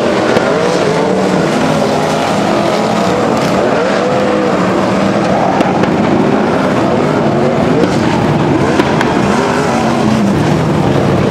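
A pack of winged sprint cars racing, their engines running hard, many at once, with the pitch rising and falling as they throttle up and back off around the track.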